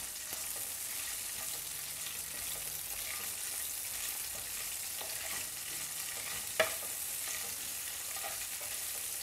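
Green chillies sizzling in a little hot oil in a frying pan, stirred with a wooden spatula, with one sharp knock about two-thirds of the way through.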